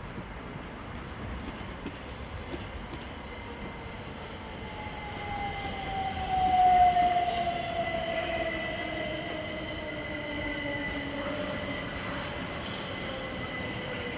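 Southern Class 377 Electrostar electric multiple unit running into the platform, its traction motor whine falling steadily in pitch as it slows, over the rumble of wheels on rail. A steady high-pitched tone joins about six seconds in, and the sound is loudest as the train comes alongside about seven seconds in.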